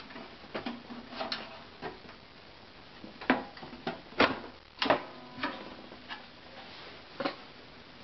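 About eight irregular clicks and knocks of a Dell Dimension 2400 tower's side panel being unlatched and pulled off the case. A few of the knocks ring briefly.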